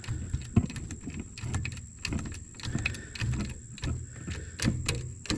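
Metal tools clicking and clanking in a series of short knocks as a seized pin on the mower's blade assembly is forced loose.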